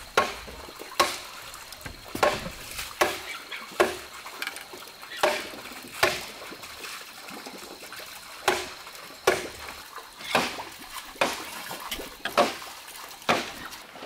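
Water splashing and sloshing in short, irregular strokes, roughly one a second.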